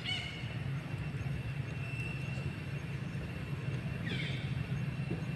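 Steady low background rumble, with a short high call right at the start and a high call falling in pitch about four seconds in.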